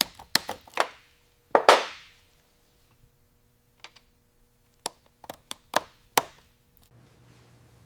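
A series of sharp taps and knocks: several quick ones at the start, a louder, longer knock about two seconds in, then a few scattered taps later.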